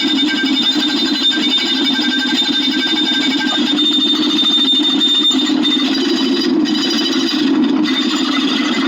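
A dense, steady stream of rapid clicks that run together, with a thin high steady tone above them.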